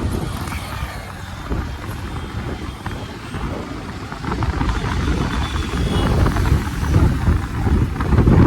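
Road noise of a moving vehicle: a low, uneven rumble that grows louder from about four seconds in.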